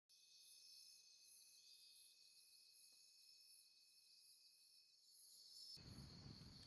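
Near silence with faint crickets chirping in an even pulse, about two chirps a second. A low hiss comes in near the end.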